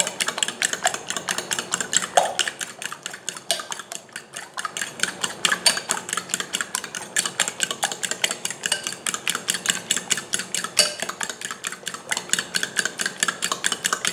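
A fork beating raw eggs in a glass bowl: a rapid, steady run of clicks as the fork strikes the glass, with the wet slap of the eggs.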